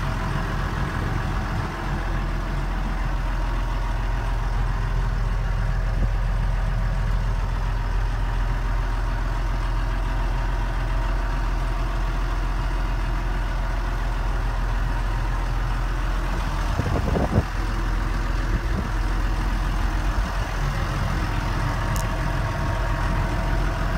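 McCormick MC120 tractor's six-cylinder diesel engine idling steadily, heard from inside the cab. There is a brief clunk about three quarters of the way through.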